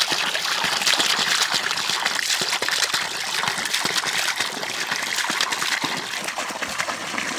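A thin stream of water pouring and splashing steadily into a shallow pool, a continuous gushing hiss dotted with small splashy clicks.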